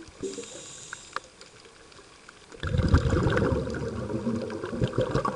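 Scuba diver breathing through a regulator underwater. A short hiss of inhaled air comes near the start, and about halfway in a long, low bubbling rumble of exhaled bubbles begins and runs on.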